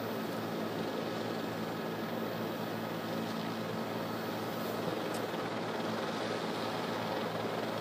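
Steady drone of a news helicopter's engine and rotor, heard from inside the cabin through the open broadcast microphone, with a constant low hum of several steady tones.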